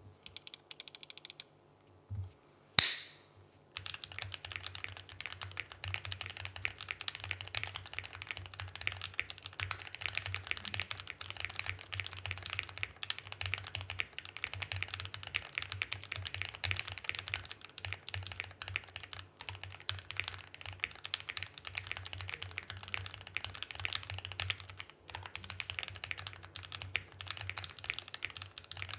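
Fast continuous typing on an Ikki68 Aurora R1 mechanical keyboard with lubed Gateron Ink Black linear switches, an aluminium plate and GMK Olivia++ keycaps. A few scattered keystrokes and one loud sharp click come first, and steady rapid typing starts about four seconds in.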